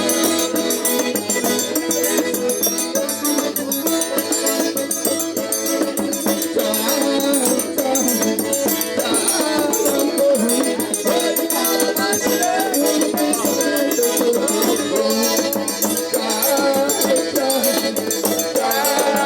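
Accordion (sanfona) playing a melody over a shaker rattling in a fast, even rhythm.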